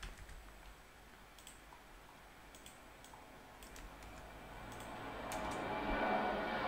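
Scattered computer mouse and keyboard clicks as text is copied and pasted, over faint room tone. Over the last two or three seconds a rushing background noise swells steadily louder.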